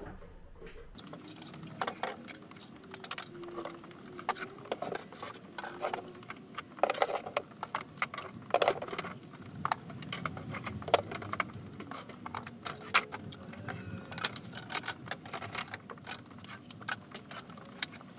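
Fast-forwarded clatter of items being handled, moved and set down: many quick knocks, clicks and rattles packed close together, starting about a second in.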